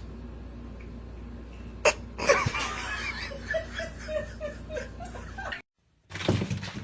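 Someone laughing in a run of short repeated notes for about three seconds, starting just after a sharp click about two seconds in; it cuts off suddenly.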